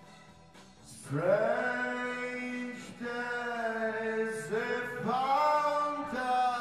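A man's voice singing long wordless notes, each sliding up into its pitch, over a faint backing track; the first note comes in about a second in.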